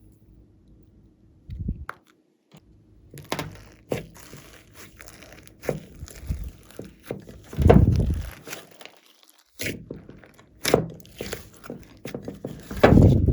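Slime being mixed and worked by hand, with irregular squishes, crackles and thuds; the loudest thuds come about eight seconds in and near the end.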